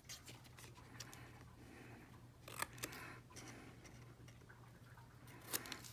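Small scissors snipping through a card-stock cutout, a few faint short snips.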